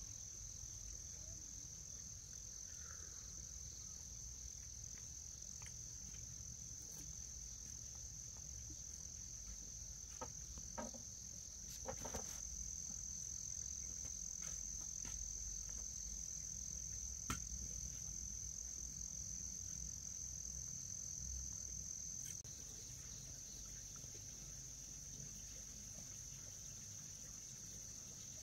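Steady chorus of insects, likely crickets, holding one continuous high-pitched trill, over a low rumble, with a few faint clicks near the middle.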